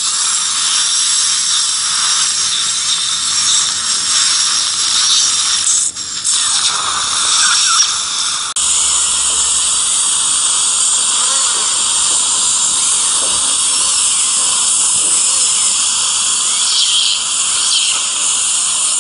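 Dental handpiece running steadily in the mouth with water spray, a continuous high hiss and whine. The sound drops out briefly about six seconds in and changes abruptly about eight and a half seconds in.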